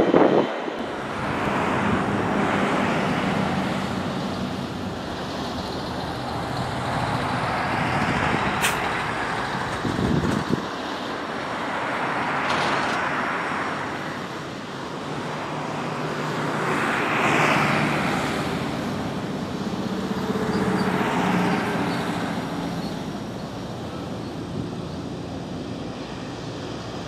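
Distant roar of a Boeing 747-400's four jet engines at takeoff power as it rolls down the runway, a rushing noise that swells and fades every few seconds.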